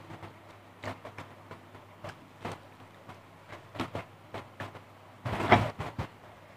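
Eating rice and fried fish by hand: scattered short wet clicks and smacks of chewing, with fingers working the rice on the plate. About five seconds in, a louder rush of noise lasting under a second.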